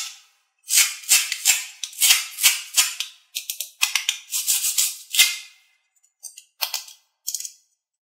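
Hard plastic toy corn pieces handled: the ridged, kernel-textured halves rubbed and clicked against each other, making a quick run of short scratchy rattles, then a few sparser ones near the end.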